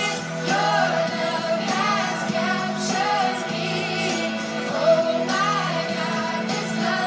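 Upbeat Christian worship song playing: sung vocals over a steady instrumental backing.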